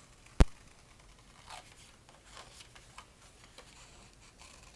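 Scissors cutting colored paper in a few soft snips and rustles, with one sharp click about half a second in.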